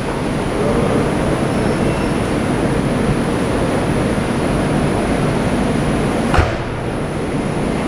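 Moscow Metro 'Moskva' train standing at the platform with its doors closed, giving a steady hum from its running equipment over station noise. A single sharp knock comes about six seconds in.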